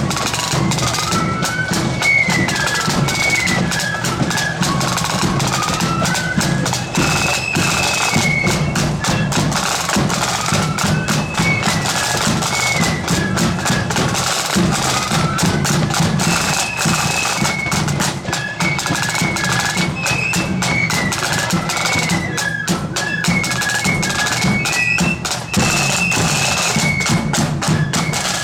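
Marching band playing a march: a high, piping melody over rapid snare drumming and a steady bass drum beat.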